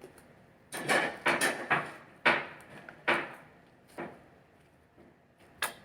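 Homemade slime being squeezed and slapped in the hands: an irregular run of sticky squelches and soft knocks, the loudest about two seconds in.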